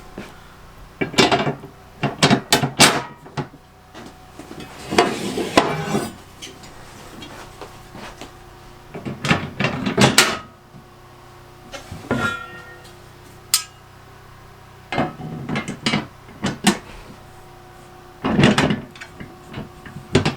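Metal snow plow brackets and bolts knocking and clinking as they are handled and fitted onto the plow blade, in scattered bursts of sharp clicks and knocks.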